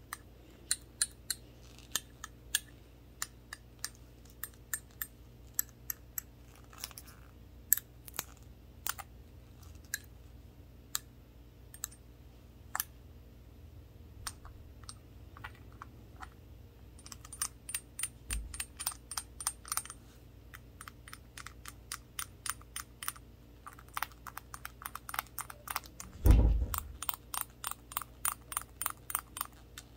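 Toothpick-tipped gloved fingers tapping on a small shot glass with a handle: sharp, irregular clicks that come in quick runs in the second half, with one heavier dull thump a few seconds before the end.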